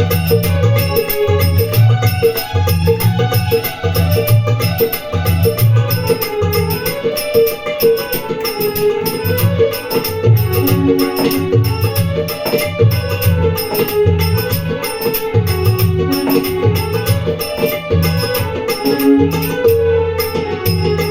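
Instrumental interlude of Marathi gavlan folk music: a wavering melodic instrument line over a steady low drum beat, with evenly repeating jingling percussion.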